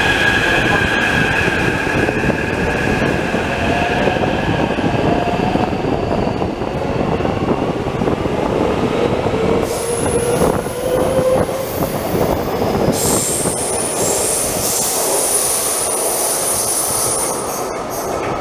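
Taipei Metro train pulling out of an underground station: its motor whine rises in pitch as it accelerates over a steady rumble of wheels on rail. A high wheel squeal comes in from about ten seconds in.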